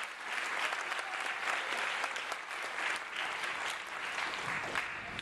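Audience applauding, dense steady clapping from a crowd in a hall, which stops abruptly right at the end.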